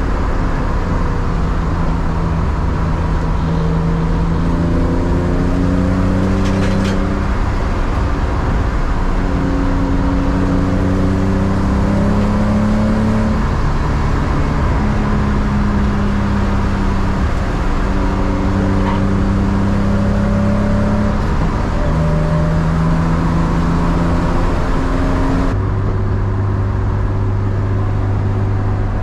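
BMW E36 328is straight-six engine heard from inside the cabin, pulling up through the gears. Its pitch climbs slowly in each gear and drops at each shift, several times over. Near the end it holds a steady drone.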